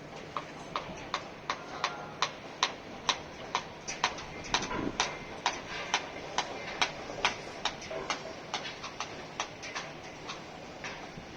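A regular series of sharp knocks, about two to three a second, getting louder toward the middle and fading away near the end.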